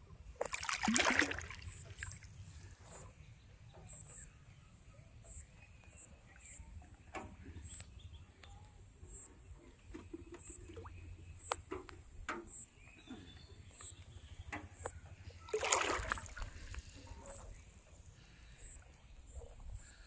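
Water splashing: a short splash about a second in and another about sixteen seconds in, with soft sloshing between them. A faint high chirp repeats evenly, about every two-thirds of a second.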